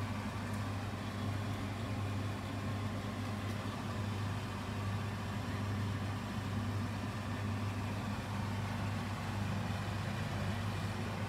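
Steady low machine hum with no change or distinct events.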